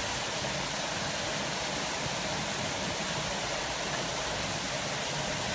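Steady rushing of water pouring over rocks into an outdoor hot-spring pool.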